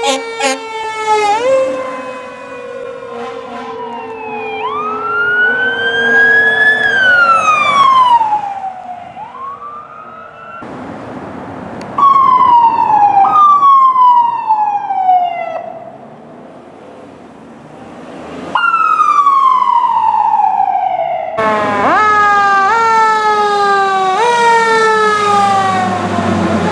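Emergency vehicle sirens on fire engines and a police car, in several short clips cut one after another. The siren tones sweep up and down, from slow rising-and-falling wails to fast repeating yelps.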